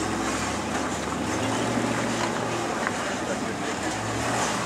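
Engines of two rock-crawling race buggies running steadily as they crawl up a boulder slope, with onlookers' voices mixed in.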